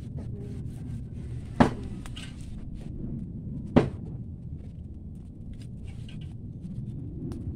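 A metal grill grate over a charcoal fire clanking sharply twice, about two seconds apart, as pieces of meat are laid onto it with tongs, over a steady low rumble, with a fainter tick near the end.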